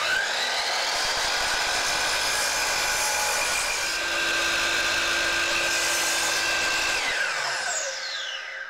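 DeWalt 12-inch sliding compound miter saw with a 60-tooth blade spinning up and running at full speed through a trim cut on a 4x4. Near the end, after the trigger is released, it winds down with a falling whine.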